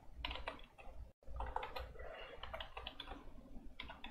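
Keystrokes on a computer keyboard typing code in quick, uneven runs, with a very short dropout to silence just after a second in.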